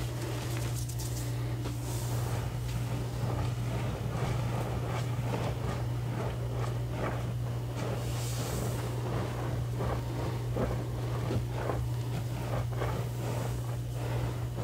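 Hands patting, pressing and dragging through a bed of loose powdered gym chalk, giving a run of soft, irregular crunchy pats and swishes. A steady low hum runs underneath.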